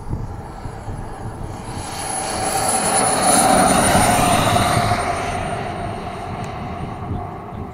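Jet turbine of a radio-controlled scale Fouga Magister (Tzukit) model whining as the model lands and rolls past along the runway. The high whine grows louder to a peak about three to four seconds in, drops a little in pitch as it passes, then fades.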